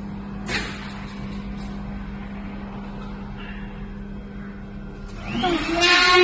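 Mini automatic edge banding machine running with a steady hum and a brief hiss about half a second in. Near the end a motor whine rises in pitch, then holds steady and grows louder.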